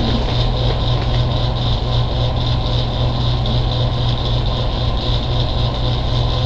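Steady low hum with a band of hiss above it, unchanging throughout.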